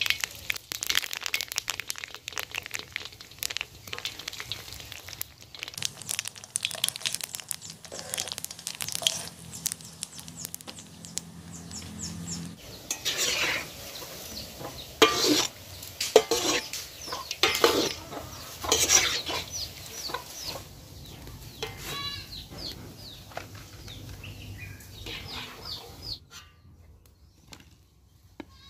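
Sesame-coated dough balls deep-frying in hot oil in a metal pan, with crackling and a metal slotted spoon clinking and scraping against the pan. Chickens cluck and call from about halfway through.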